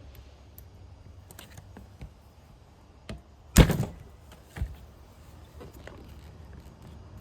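A hammer strikes a hand impact screwdriver: one loud, sharp blow a little past halfway and a lighter one about a second later, with a few light clicks around them. The blows are meant to break loose rusted screws on the engine's air intake valve.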